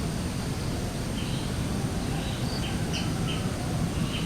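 Small birds chirping in short, high calls, several in quick succession about three seconds in, over a steady low outdoor rumble.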